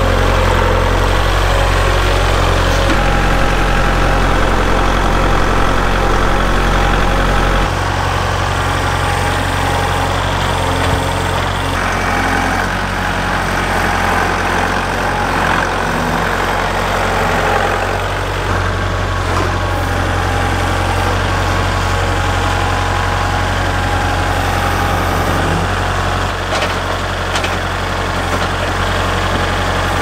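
Kubota compact tractor's diesel engine running as the tractor moves with a log in its loader grapple. The engine note shifts several times, dropping about a third of the way in and rising again a little past halfway.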